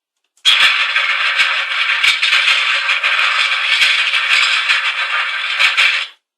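A recorded ship sound effect: a loud, dense crackling noise with scattered sharp clicks that starts abruptly about half a second in and cuts off abruptly near the end.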